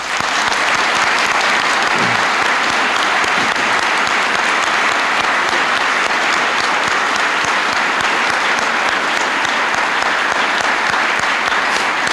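Audience applause that breaks out suddenly and holds steady and loud.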